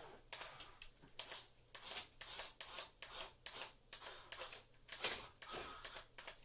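1/14 scale Top Race RC excavator at work: a run of short scraping, rasping sounds, about two or three a second.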